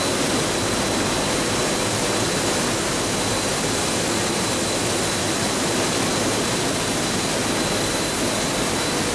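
Coil car mat production line running: a steady rushing machine noise with a thin, steady high whine through it.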